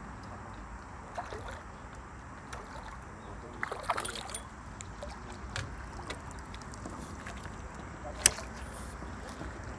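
A hooked crucian carp splashing briefly at the water's surface about four seconds in as it is drawn in, over a steady outdoor hiss, with scattered small knocks and one sharp click a little after eight seconds.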